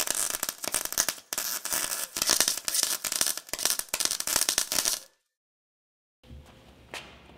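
Electric arc welding: a dense, steady crackle that pauses briefly about a second in, then stops abruptly about five seconds in.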